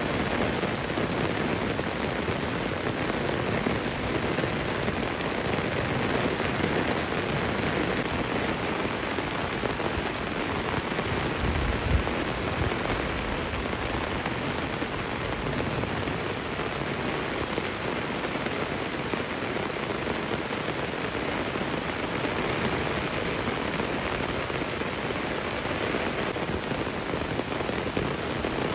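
Heavy rain falling steadily on leafy field crops and trees: a dense, even hiss of drops, with one brief low bump about midway.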